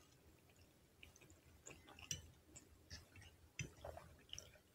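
Faint eating sounds: chewing a mouthful of creamy baked rotini, with scattered light clicks of a metal fork against a glass plate.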